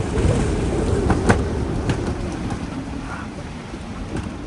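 Strong gusting wind buffeting the microphone: a heavy, rumbling roar with a few sharp clicks in the first two seconds, easing off gradually toward the end.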